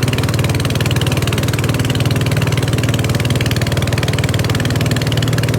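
Boat engine running steadily under load, a fast, even chugging that does not change, as it drives the boat upstream against the current.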